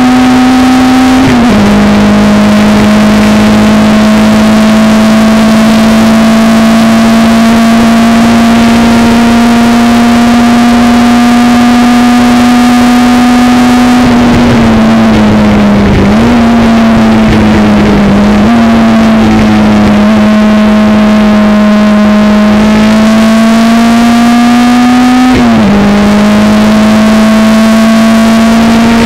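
Chevron B16's BMW racing engine at high revs, heard from inside the open cockpit at racing speed with rushing wind. It changes up about a second in and pulls a long, slowly rising note; midway it falls away with quick blips as the driver brakes and changes down, then it climbs again with another upshift near the end.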